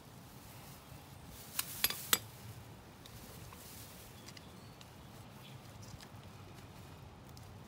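A quick run of three or four sharp metallic clinks from a ratchet and oil-filter wrench knocking together, about a second and a half in, over faint steady background noise.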